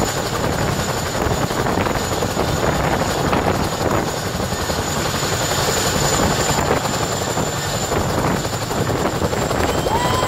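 Boeing CH-47 Chinook tandem-rotor helicopter running at close range as it hovers low and lifts off: a loud, steady rush of rotor chop from its two rotors with a constant high turbine whine from its twin turboshaft engines.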